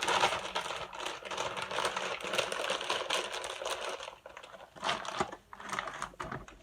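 Dense crisp crackling and crunching of potato chips and their bag for about four seconds, then a few separate crunches near the end.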